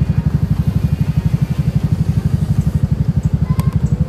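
Motorcycle engine running at a steady cruise while riding, its exhaust pulsing rapidly and evenly.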